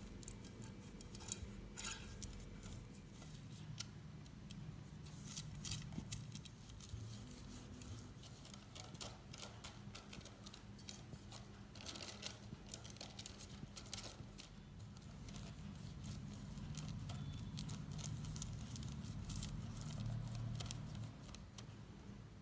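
Faint crinkling and rustling of baking paper being pressed and folded into a metal cake tin, with many small clicks and taps against the tin.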